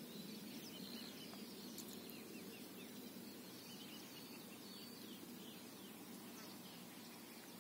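Faint outdoor ambience with small birds chirping now and then: short, high chirps scattered throughout over a quiet steady background.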